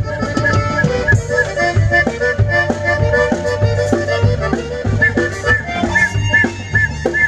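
Accordion playing a quick melody of short, running notes over a pulsing electric bass line, live band music.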